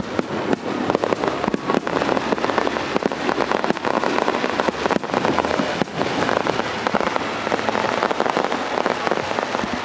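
Fireworks crackling: crackling stars bursting in a dense, continuous run of many small pops, with some sharper bangs among them.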